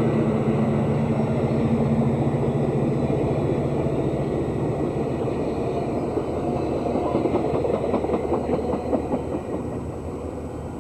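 Amtrak Amfleet passenger cars rolling past close by, a dense rumble of steel wheels on rail. The wheels click rhythmically over the rail joints, loudest as the last car goes by near the end, after which the sound fades.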